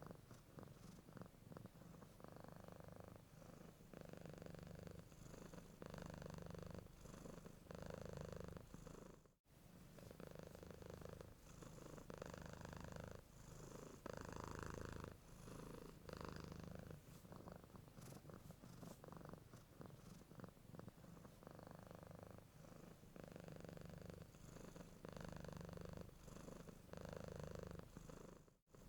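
Domestic cat purring steadily and quietly, the rumble swelling and easing in a regular rhythm with each breath in and out. The sound cuts out completely for a split second about nine seconds in.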